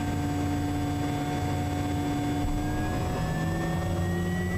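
Quest Kodiak's PT6A turboprop engine turning on its starter during engine start: a steady whine, with a rising tone coming in about halfway through as the engine speeds up.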